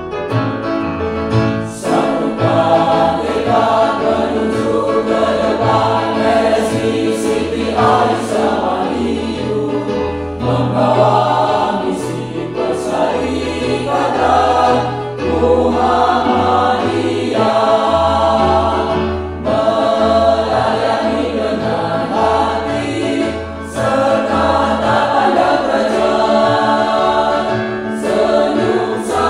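Mixed choir of men and women singing with electronic keyboard accompaniment, low bass notes changing beneath the voices; the singing runs in phrases with brief dips between them.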